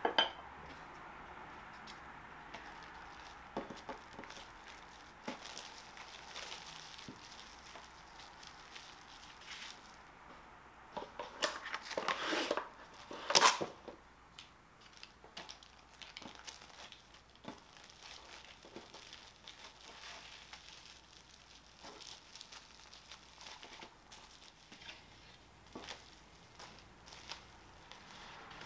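Cling film pulled from its box and torn off, with a sharp crinkling rip about halfway through. Softer crinkling follows as hands smooth the plastic sheet flat, with light handling knocks scattered throughout.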